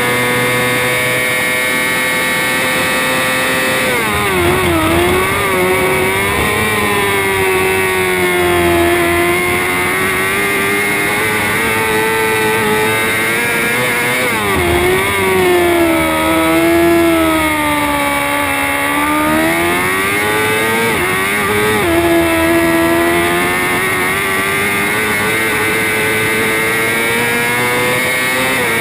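A Moto2 race bike's Honda 600 cc inline-four engine, heard onboard. It holds a steady high pitch at full throttle for the first few seconds, then drops through downshifts under braking at about four seconds in. The engine then revs up and down through a series of corners and pulls steadily again before dropping once more right at the end.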